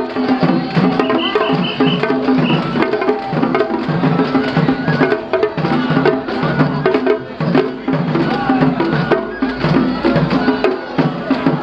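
Japanese festival music at a shrine procession: drums beating a steady rhythm, with sharp wooden knocks over sustained pitched tones.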